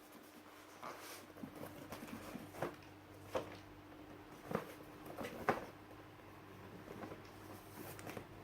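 Keyboard box and packaging being handled: sparse, irregular soft knocks and rustles over a faint steady hum.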